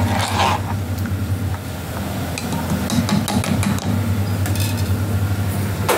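Steel ladle clinking and scraping against an aluminium pressure cooker while a thick curry is stirred, followed by scattered metal knocks as the pot is handled, with a cluster of clicks about halfway through. A steady low hum runs underneath.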